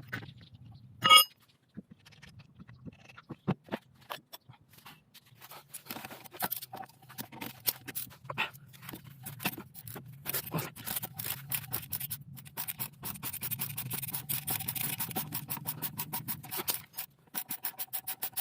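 Hand tools working on a car's disc brake assembly: scattered metallic clicks, knocks and scrapes, with a long run of rapid clicking in the second half.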